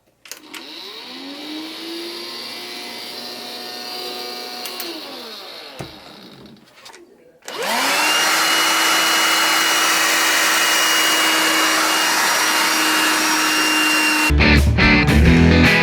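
Handheld vacuum cleaner motor switched on, spinning up with a rising whine, running a few seconds and winding down. It is then switched on again and runs louder with a steady high whine until music comes in near the end.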